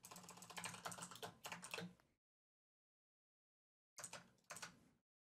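Typing on a computer keyboard: a quick run of keystrokes for about two seconds, then silence, then two short bursts of keys near the end.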